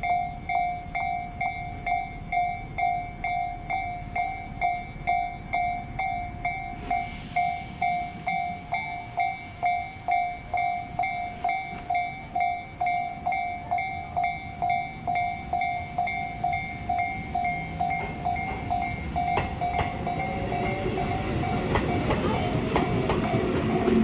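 Japanese level-crossing warning bell ringing steadily at about two strikes a second. In the second half a passing train grows louder, its wheels clattering over the rail joints, until it nearly covers the bell near the end.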